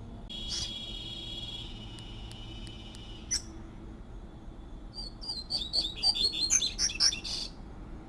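Double-collared seedeater (coleiro) singing: a buzzy note held for about three seconds, a single sharp click, then after a pause a quick run of sharp twittering notes near the end, the loudest part.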